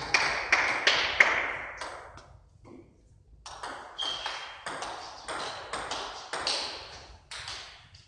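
Table tennis rally: the celluloid ball clicking in quick succession off the paddles and table, ringing in a large echoing hall. One rally stops about two seconds in, and after a short pause another runs until near the end.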